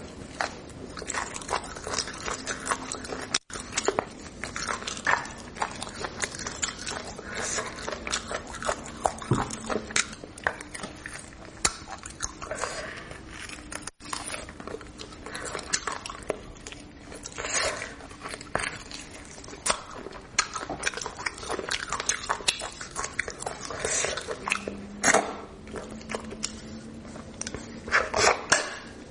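Close-up eating sounds of beef bone marrow being bitten and chewed: a steady run of irregular wet clicks and smacks, broken by two brief dropouts.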